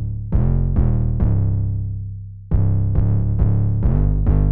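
Solo 808 bass line playing back through an EQ, Clip Distortion and RBass plugin chain: short, hard-starting, distorted bass notes at shifting pitches, with one note left to ring out for about a second in the middle.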